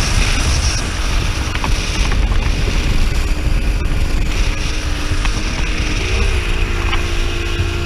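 Speedboat engine running underway, with heavy wind rumble on the microphone; the engine note bends up briefly about six seconds in, then holds steady.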